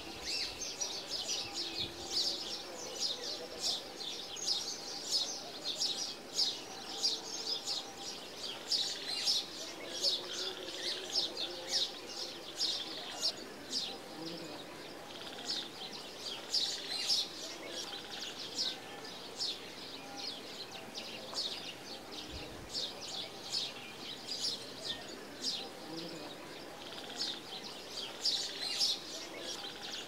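Birds chirping: a dense, steady stream of short high calls, several a second.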